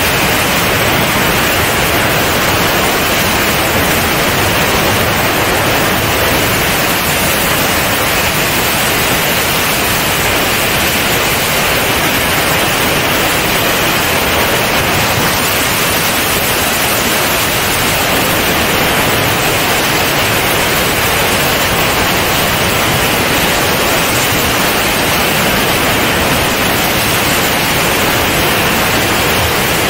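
Loud, steady rush of airflow over a camera mounted under the wing of a C42 ultralight aircraft climbing out after takeoff, an even hiss with no distinct engine tone standing out.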